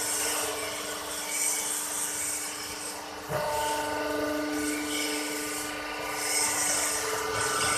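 Hydraulic pump of a vertical cardboard baler running with a steady whine, getting louder about three seconds in as the ram drives the press plate down into the chamber.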